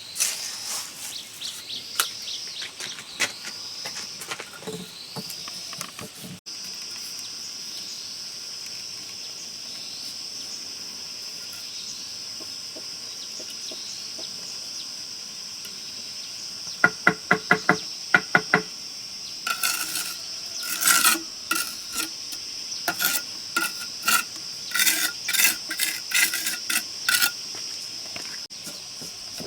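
Insects drone steadily on one high pitch, with a repeated chirping call over the first few seconds. About halfway there is a quick run of about ten sharp clicks. For the next several seconds come irregular sharp taps and clinks.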